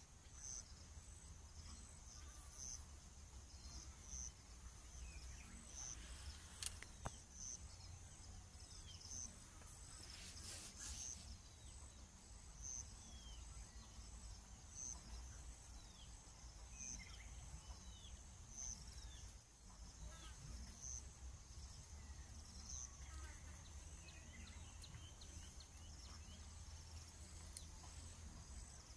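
Faint insect chirping: a high, regular chirp repeating about every second or so over a steady high hum. Scattered short bird chirps come and go, with a low outdoor rumble underneath.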